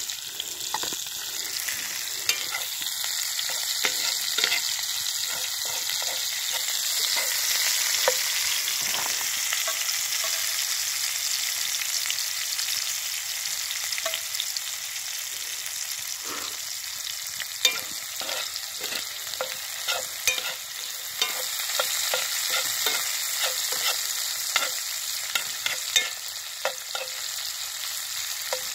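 Diced onions sizzling in meat drippings in a cast-iron skillet, with a steady hiss. A metal spatula stirs them, scraping and clicking against the pan, more often in the second half.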